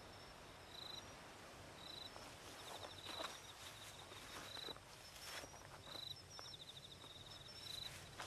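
Crickets chirping faintly in short, repeated chirps and trills, with a few soft taps like footsteps.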